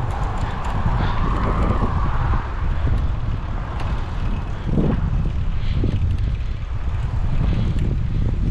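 Wind buffeting the microphone of a moving bicycle rider: a steady low rumble with gusts, one stronger swell about five seconds in.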